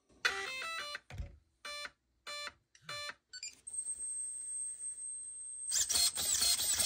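Spektrum Firma 150 A brushless ESC powering up: a quick run of musical startup tones through the 2050 kV motor, then three short beeps, typical of the ESC counting a three-cell (3S) LiPo. A faint steady high whine follows, with a louder whirring burst near the end.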